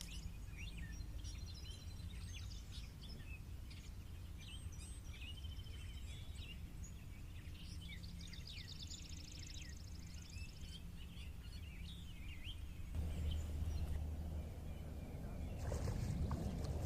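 Several wild birds singing and chirping, with a rapid trill twice, over a low steady rumble. About thirteen seconds in the rumble gets louder, and near the end there is a rustling noise.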